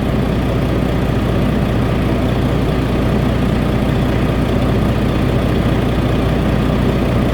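Freshly rebuilt Volvo D13 straight-six diesel idling steadily at light load.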